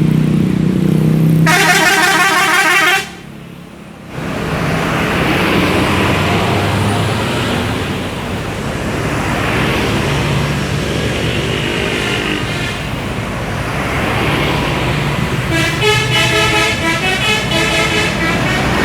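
Coach 'telolet' horns, multi-tone air horns playing a quick jingle, sound twice: once about two seconds in and again near the end, each time for two or three seconds. Between them is the steady noise of bus engines and traffic.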